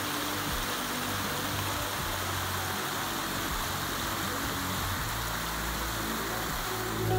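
Small mountain stream rushing and splashing over rocks, a steady even rush.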